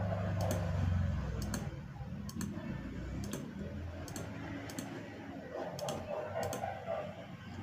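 Light clicking at uneven spacing, about one or two clicks a second, as a password is entered on a CCTV DVR, over a low steady hum.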